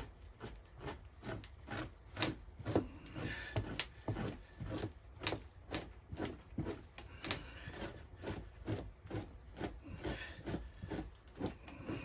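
Victorinox knife blade scraping fat off a beaver pelt in short, repeated strokes, about two a second.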